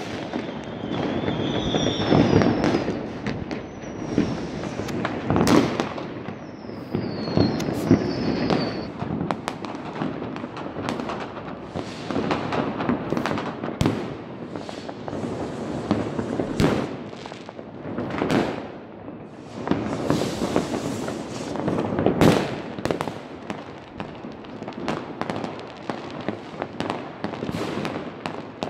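New Year's Eve fireworks going off all over a city: rocket bursts and firecracker bangs follow one another almost without pause, over a running crackle. In the first nine seconds or so a few high whistles glide down in pitch.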